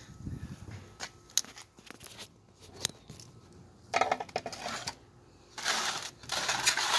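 Metal grill tongs clinking and scraping against a metal baking pan while grilled beef back ribs are moved. A few sharp clinks come in the first three seconds, then longer scraping noises in the second half.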